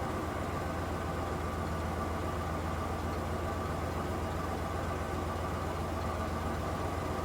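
Truck engine idling steadily with a low, even drone.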